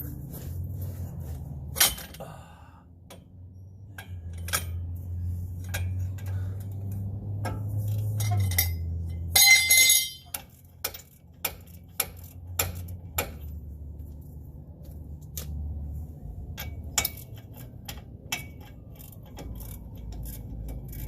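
Metal tools and parts clinking and knocking while brake parts on a pickup's wheel are being worked on. About nine and a half seconds in comes a loud metallic clank that rings briefly. A low steady hum sits underneath throughout.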